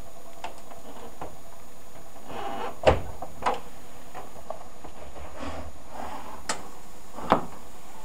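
Clicks and knocks from the plastic detergent drawer of a Hoover washer-dryer being handled and pulled open. The loudest knock comes about three seconds in, after a brief scrape, and another sharp clack near the end as the drawer slides out.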